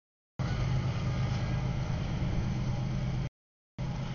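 Freight train of double-stack container cars rolling past, a steady low rumble of wheels on rail. The sound cuts out to dead silence twice for about half a second.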